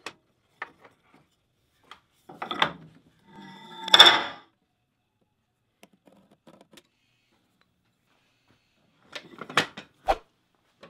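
Workbench handling sounds: scattered clicks and knocks of a wooden block and hand tools being moved and set down, with a short rattle about two and a half seconds in, the loudest clatter about four seconds in, and a dull thump near the end.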